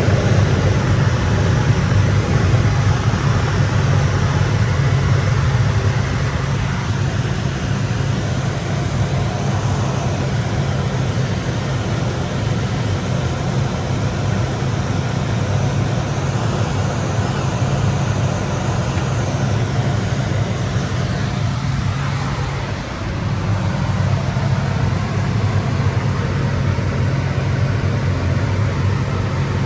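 John Deere 6110R tractor engine running steadily under load, a constant low drone with a brief dip in level about 23 seconds in.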